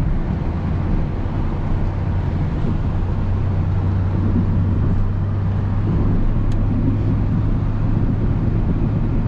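Pickup truck driving, heard from inside the cab: a steady low engine hum over a constant rush of road noise.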